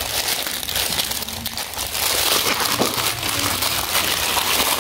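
Plastic packaging crinkling and crackling steadily as it is handled and opened by hand.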